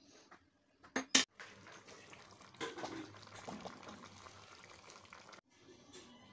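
Two sharp knocks about a second in as the plate lid comes off the dough-sealed aluminium handi, then dum-cooked jackfruit curry sizzling and bubbling in the open pot. The sizzle cuts off suddenly near the end.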